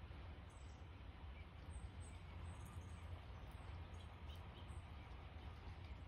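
Faint outdoor background with a steady low hum, and a few brief, faint bird chirps scattered through it, one about a second and a half in and a couple past the middle.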